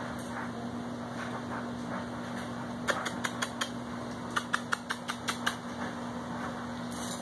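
Steady low electric hum, with two quick runs of sharp light clicks about three and about four and a half seconds in.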